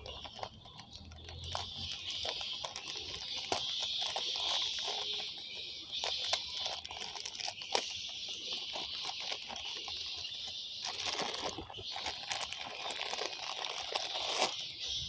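Thin plastic fish bag crinkling and rustling in the hands, with scattered small crackles and clicks, over a steady high-pitched hiss.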